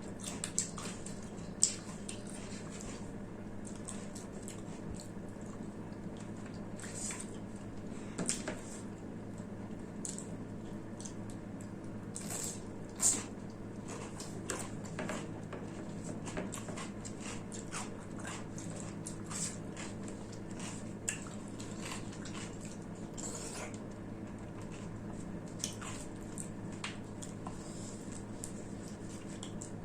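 Close-miked eating of rice and mutton curry: wet chewing, squishing and mouth smacks, with irregular short clicks and a few sharper ones, over a steady low hum.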